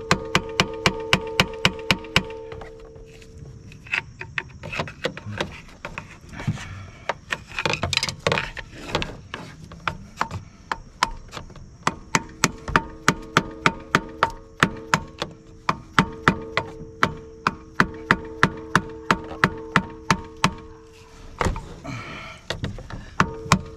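Rapid light taps of a hammer on a flat-tip screwdriver used as a chisel against the cracked plastic fuel filter cap of a Ford 6.0 Powerstroke diesel, driving the stuck cap round to break it loose. The taps come about three to four a second in runs, with a sparser stretch in the middle.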